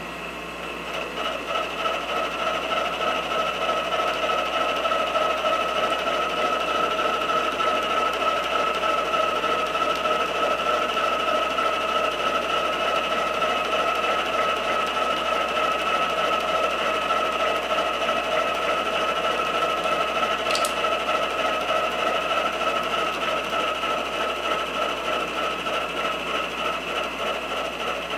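Milling machine's spiral end mill cutting a hex flat into 4140 steel: a steady whine with a fast, even pulse. It builds as the cutter feeds in over the first couple of seconds.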